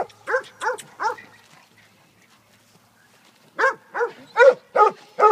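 Dog play-barking during rough wrestling: a quick run of short, high-pitched barks, a pause of about two seconds, then another quick run.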